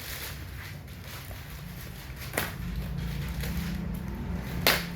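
Handling noise as cables are unplugged from a TV's power board: a low steady rumble with two sharp clicks, the louder one near the end.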